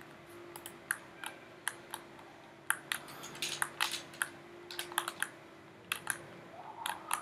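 Irregular clicking of a computer keyboard and mouse, single clicks and short quick runs, over a faint steady hum.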